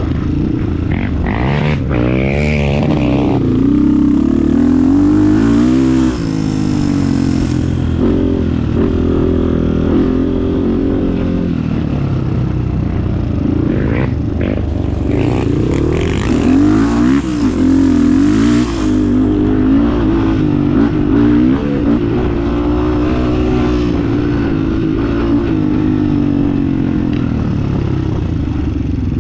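Trail motorcycle engine running under constantly changing throttle, its pitch rising and falling as it revs up and eases off over and over.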